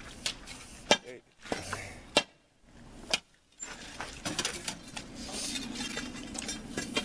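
Steel pry bar being pounded straight down into saw-cut concrete to crack it: sharp metallic clinks, a few hard separate strikes in the first three seconds, then a quicker run of lighter clinks.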